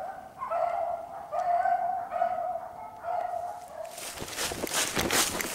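Beagle baying on a rabbit's trail in a solo chase: a run of about five drawn-out, pitched bawls, one after another. About four seconds in, a loud crunching rustle of dry leaves and brush takes over.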